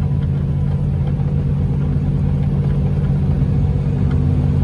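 Steady low engine and road drone of a vehicle cruising on a highway, heard from inside the cabin.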